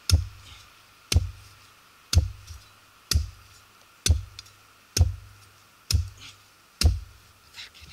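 A digging tool chopping at a thick tree root in the forest floor, eight heavy blows about once a second, each a dull thud with a sharp crack, to get at a metal-detector target beneath the root.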